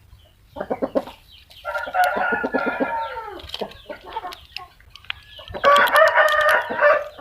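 Chicken calling: a few short rapid clucks, then two long drawn-out calls, one about two seconds in and another near six seconds in.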